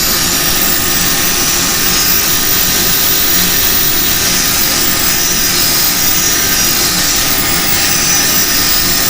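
Axminster wood lathe running steadily at speed, with a loud, even rushing noise and a high, steady whine that climbed just before and then holds.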